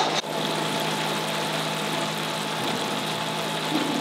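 Ground onion-tomato masala bubbling and sizzling steadily in oil in a kadhai, frying slowly over a low gas flame, with a constant mechanical hum underneath.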